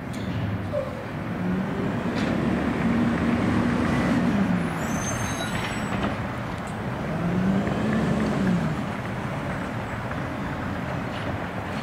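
Engine of an automated side-loader garbage truck pulling away slowly, its pitch rising and falling twice as it speeds up, with a brief high squeal about five seconds in.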